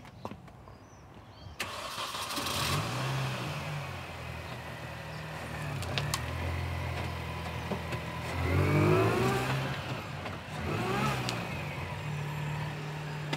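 Car engine starting about a second and a half in, then running, with the revs rising once past the middle and again near the end.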